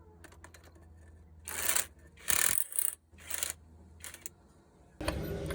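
Several short rasping, rubbing noises against a faint low hum, then near the end a loud, steady engine-like running sound starts suddenly.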